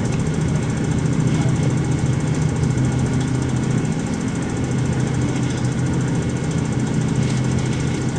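Boat engine running steadily at constant speed, a low, even drone.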